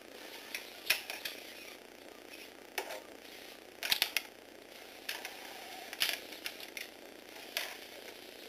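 Lego Technic walking robot clattering across a wooden floor: its plastic legs and feet tap and click irregularly, a few clicks a second, the loudest cluster about four seconds in.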